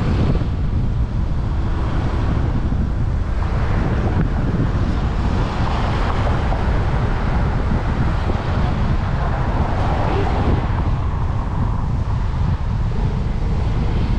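Heavy rain with wind buffeting the microphone: a steady hiss over a constant low rumble, the hiss swelling and easing a little.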